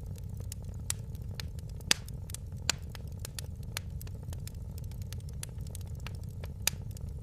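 Wood fire crackling in a fireplace: a steady low rumble with many small snaps and a few louder pops, the loudest about two seconds in.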